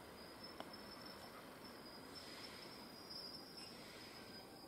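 Near silence: a faint, steady high-pitched whine over quiet background hiss, with a tiny click or two near the start.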